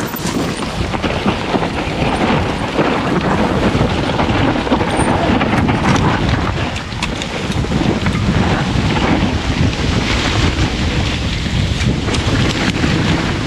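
A mountain bike riding down a rough trail: a steady rumble and rattle from the tyres and bike, with wind rushing over the microphone.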